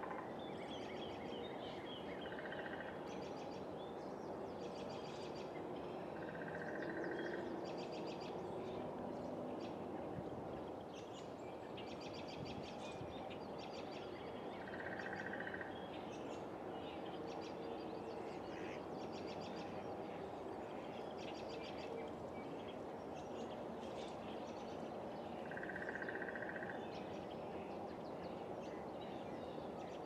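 Outdoor nature ambience of small animal calls over a steady hiss: many short, rapid chirps and a one-second buzzing call that comes back every several seconds.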